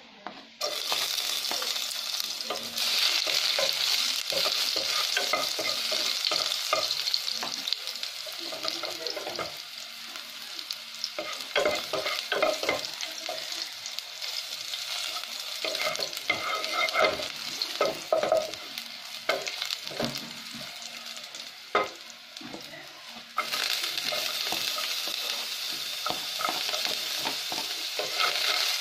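Chopped garlic sizzling in hot oil in a nonstick pot, the sizzle starting suddenly about half a second in as the pieces hit the oil. A wooden spoon stirs and scrapes against the pot in irregular knocks. The sizzle eases through the middle and comes back louder near the end.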